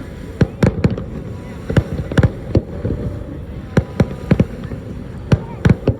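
Fireworks display: aerial shells bursting in about a dozen sharp bangs, coming in uneven clusters of two or three, over a steady low rumble.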